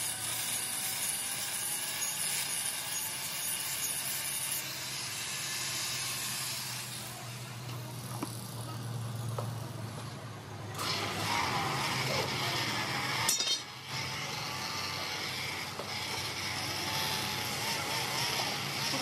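Angle grinder with a flap disc grinding a steel hydraulic cylinder rod: a steady whine over a hissing grind, which fades about a quarter of the way in, leaving a low hum. A little past halfway a flexible-shaft polisher starts, with a wavering whine, cutting out briefly about two-thirds through.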